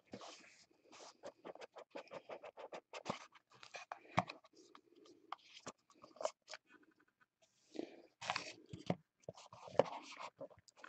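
Faint scraping, rustling and light clicking of a small trading-card box being opened by hand and a stack of cards taken out and set down, in many short irregular bursts.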